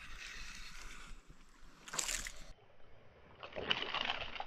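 Water splashing and sloshing in short bursts, one about two seconds in and another near the end.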